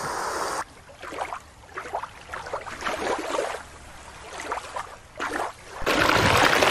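Irregular splashing as a killer whale leaps and lands in a show pool. About six seconds in it gives way to the louder, steady rush of a shallow creek running over rocks.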